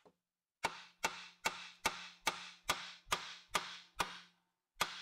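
Steel hammer blows on the outer tie rod end and steering knuckle, struck to knock the tie rod end's taper loose. Ten sharp blows with a short metallic ring, about two and a half a second, with a short pause before the last one.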